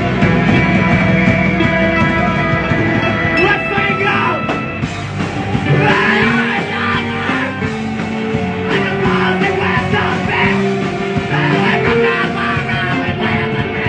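Live rock band playing: drums, electric guitar and keyboard, heard from within the crowd through a phone's microphone.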